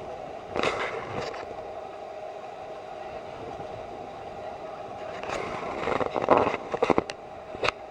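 Tour boat's engine running with a steady hum, with short, loud bursts of noise about half a second in and again several times from about five seconds in.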